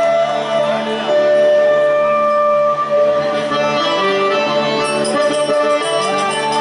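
Instrumental passage of traditional Bengali folk music: a harmonium and a keyboard play steady held chords, with no singing.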